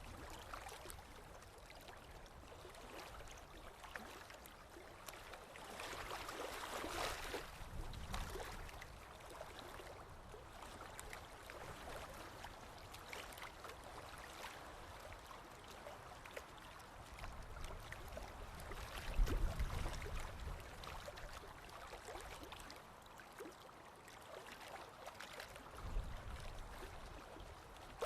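Forest river running over rocks, a steady rush and babble of water, with a couple of brief low rumbles about two-thirds of the way through and again near the end.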